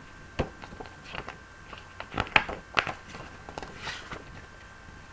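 Pages of a paper book being handled and turned: a string of short rustles and soft taps, loudest in the middle.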